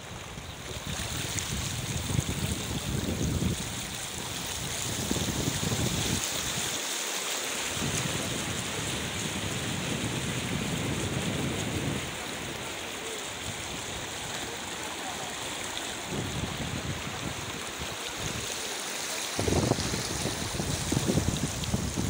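Floodwater rushing in a steady hiss, with wind buffeting the microphone in irregular low gusts.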